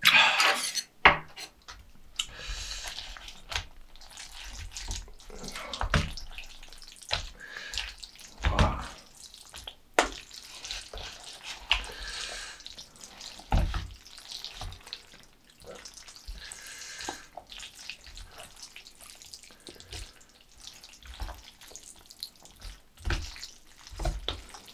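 Close-miked eating of jjajangmyeon: wet slurping and chewing of noodles in black bean sauce, with scattered light clicks and several longer hissy slurps.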